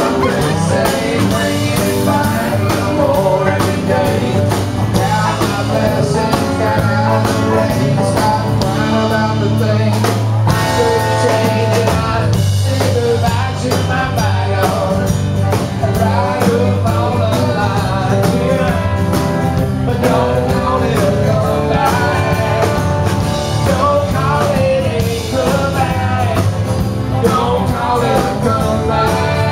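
Live country-rock band playing a song at full volume: electric guitars, acoustic guitar, bass guitar and drum kit.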